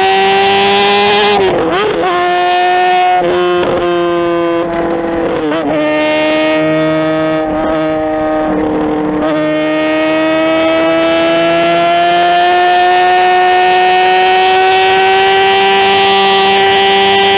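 Sport motorcycle engine held at high revs at high speed, a steady high-pitched note. It wavers and dips slightly with some brief disturbances in the first few seconds, then climbs slowly through the second half.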